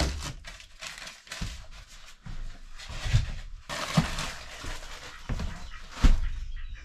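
Hard-frozen food packages being lifted out of a chest freezer and set into fabric bins: crinkling plastic wrap between several dull knocks of frozen packages against each other and the bins.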